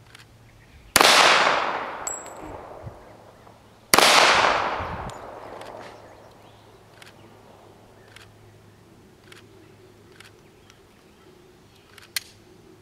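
Two shots from a Taurus PT1911 .45 ACP pistol about three seconds apart, each one loud with a long echo that dies away over about two seconds. Near the end comes one short sharp click.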